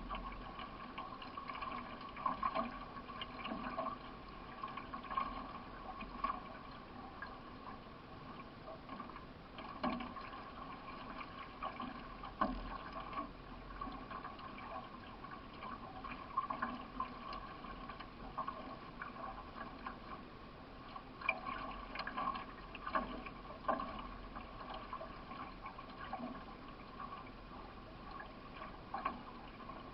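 Water running along the hull of a solo racing canoe under way, with the irregular splash of paddle strokes.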